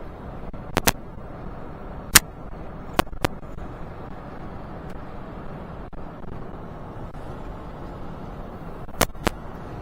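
Steady road and engine noise inside a moving car's cabin, broken by several short sharp clicks or knocks: a pair near the start, a few more over the next few seconds, and another pair near the end.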